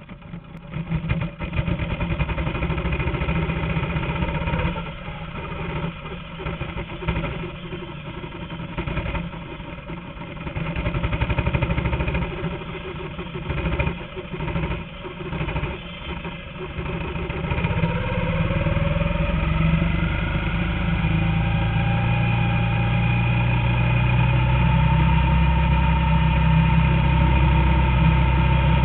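Engine of a small single-seat racing car heard from onboard, running unevenly on part throttle at first, then rising steadily in pitch from a little past halfway as the car accelerates, and holding steady at high revs near the end.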